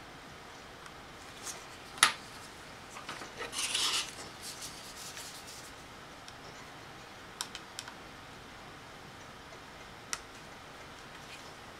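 A small tool clicking and scraping against the metal casing of a SATA hard drive as its cover is pried open: one sharp click about two seconds in, a short rasping scrape a second or so later, then a few light clicks.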